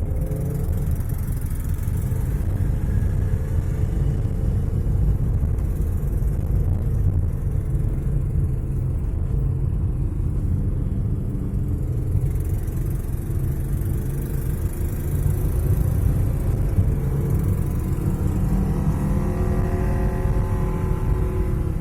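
Two-cylinder engine running steadily with a low, even rumble.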